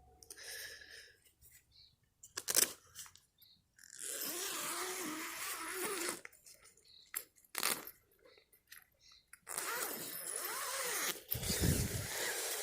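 Nylon tent fabric rustling as it is handled, in two long stretches, with a few sharp clicks between them and a low thump near the end.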